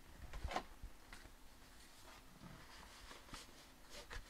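Faint handling noises from cardboard packaging: a few soft scrapes and taps as small boxes and the outer box are moved and lifted.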